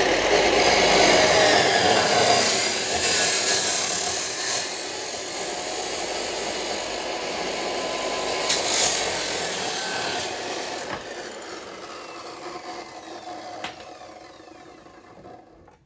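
Abrasive cut-off chop saw with a fibre disc cutting through 1-inch metal tubing. The sound is loudest in the first few seconds, then the blade winds down and fades away over the last several seconds.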